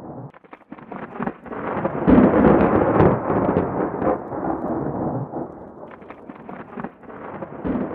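Heavy rain falling and drumming in many sharp ticks over a low rumble, swelling about two seconds in and easing off after about six.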